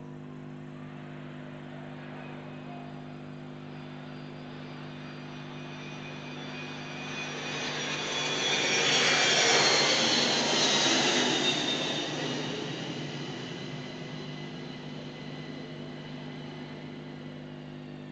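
Kawasaki C-1 military transport jet flying over. Its engine noise swells to a peak about halfway through, with whining tones that slide down in pitch as it passes, then fades away.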